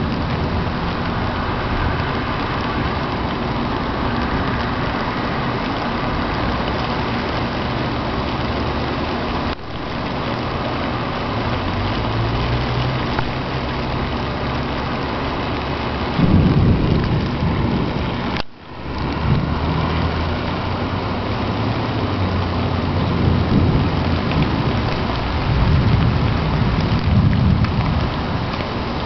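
Steady rain falling, a loud even hiss, with deep rumbling swells about sixteen seconds in and again near the end. The sound drops out briefly twice.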